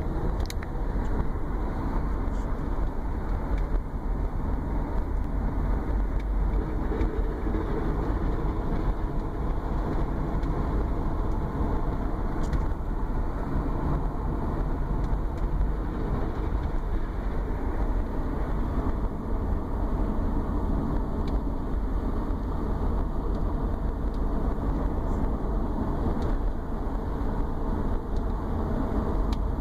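2011 Subaru Forester running with a steady low drone under the road and engine noise. The owner hears this drone under light load, with the automatic's torque converter unlocked at 1,000 to 1,500 rpm, and it began after the engine was pulled and refitted to fix an oil leak; its cause is unknown.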